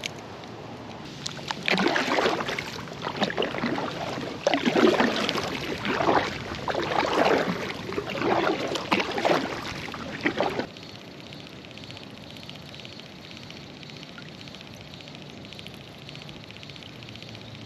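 Water splashing and sloshing against an inflatable kayak in a run of irregular swells lasting about nine seconds, which stops abruptly and leaves a fainter steady background.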